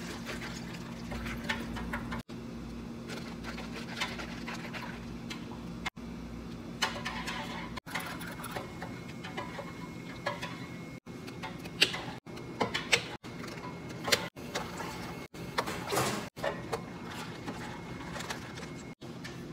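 Iced cafe drinks being made: water and espresso poured over ice in plastic cups, with ice clinking and plastic cups and lids clicking and rattling, over a steady low hum of cafe equipment. The sound cuts off abruptly again and again between short takes.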